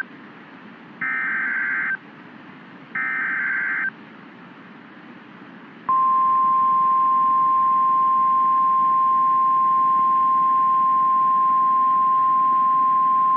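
NOAA Weather Radio Emergency Alert System activation: two short, harsh bursts of SAME header data about a second apart, then, about six seconds in, the steady single-pitched 1050 Hz warning alarm tone starts and holds. Together they signal that a warning is about to be read, here a tornado warning.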